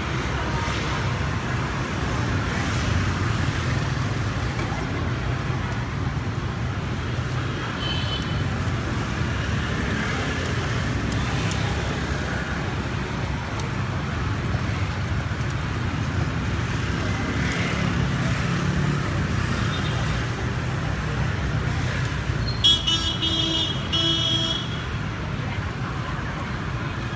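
Steady street traffic noise, with a vehicle horn honking for about two seconds near the end.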